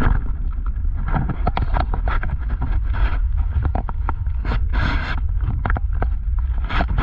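Car driving on a gravel road, heard from inside the cabin: a steady low rumble with the crackle and crunch of the tyres on loose gravel, and a louder burst of crunching about five seconds in.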